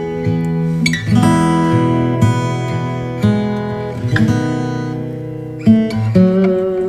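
Background music: an acoustic guitar playing slow strummed chords, each ringing out before the next.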